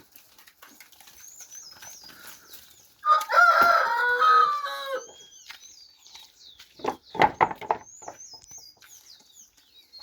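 A rooster crowing once, a long call of about two seconds a few seconds in, with small birds chirping high and a few short sharp sounds a couple of seconds after the crow.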